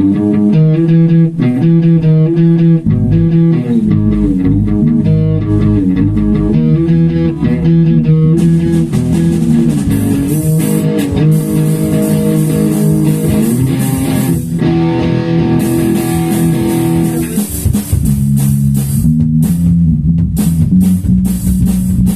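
Rock band playing an instrumental passage: guitar and bass guitar play a riff, and drums with cymbals come in about eight seconds in, dropping out briefly a little past the middle before coming back.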